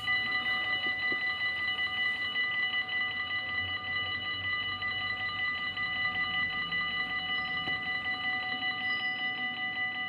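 Electric warning bells of a Dutch automatic half-barrier level crossing ringing rapidly and steadily, signalling an approaching train while the barriers come down.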